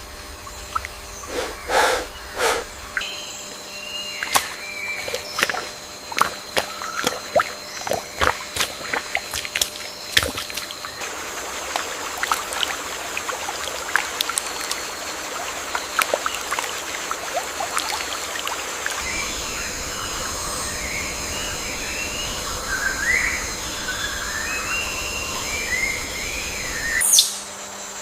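Rainforest ambience: a steady high insect drone throughout, with many sharp clicks and taps through the first ten seconds or so, and birds chirping in the second half. A loud swish comes near the end.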